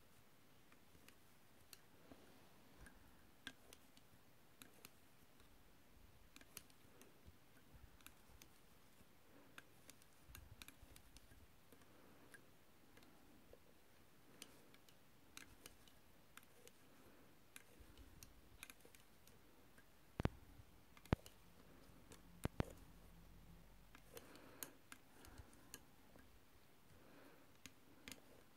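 Faint, irregular light clicks of a metal loom hook against the plastic pegs of a round knitting loom as stitches are lifted off, with a few sharper clicks about two-thirds of the way through.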